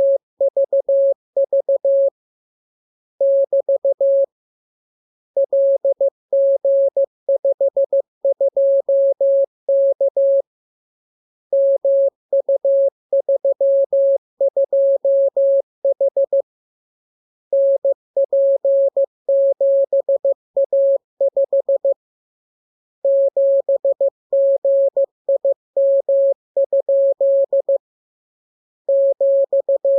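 Morse code sent as a steady single-pitch practice tone, keyed on and off in quick dots and dashes. The characters come in groups with pauses of about a second between them, as in a code-practice radiogram.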